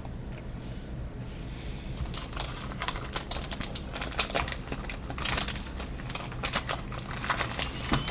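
Football trading cards being handled by hand: after about two seconds of quiet, a run of short, irregular crinkles and clicks of card stock and packaging.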